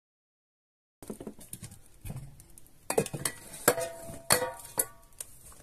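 Packaged groceries being handled and set down on a kitchen counter: a run of knocks and clinks, starting about a second in, a few with a short ringing tone like a glass jar or bottle being knocked.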